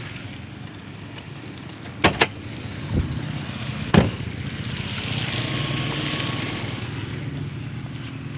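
1996 Toyota Camry engine idling steadily, with two sharp clicks about two seconds in and a couple of knocks a second or two later.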